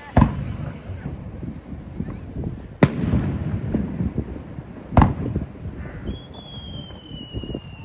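Aerial firework shells bursting: three sharp bangs about two and a half seconds apart, each trailing off in a low rumbling echo, with another bang right at the end. Starting about six seconds in, a long high whistle from a whistling shell slowly falls in pitch.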